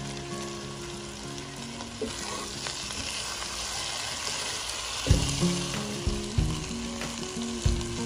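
Small whole fish sizzling in hot oil and spiced onion-tomato masala in a pot while being stirred with a silicone spatula. A few sharp knocks come from about five seconds in.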